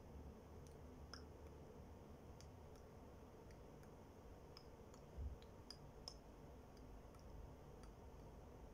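Near silence, with faint scattered small clicks and ticks at irregular intervals and one soft low thump about five seconds in.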